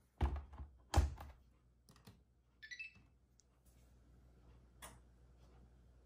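Two dull thumps about a second apart, followed by a brief high chirp and, near the end, a small click.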